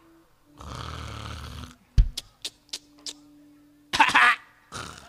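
A performer's voice making loud, raspy snores and snorts for a sleeping character. Between the snores come a low thump and a run of four or five sharp clicks.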